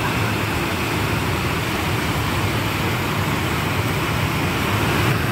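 Water rushing steadily over a stepped concrete weir, a loud even wash of white water. The stream is running in heavy flow, perhaps swollen by rain.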